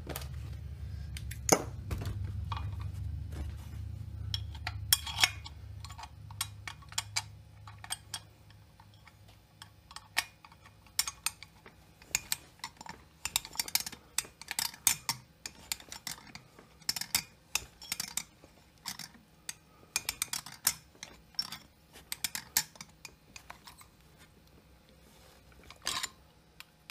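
Irregular metallic clicks and clinks of a hand-held T27 Torx wrench turning and seating the cylinder base screws on a chainsaw engine. A low hum fades out over the first several seconds.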